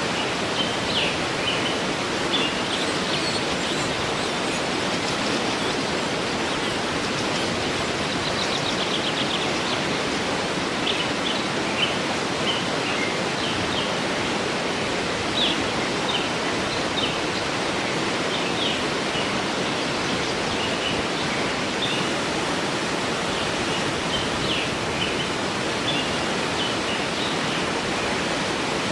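Waterfall rushing steadily, with small birds chirping and singing in short high calls throughout, including a quick trill about eight seconds in.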